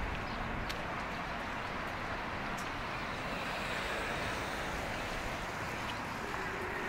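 Steady outdoor background noise: an even, continuous rush with a few faint clicks, and a faint steady hum that comes in near the end.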